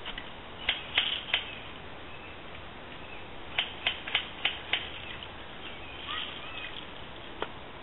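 Airsoft gun firing, sharp snapping shots: a few about a second in, then a quick run of five at roughly three a second.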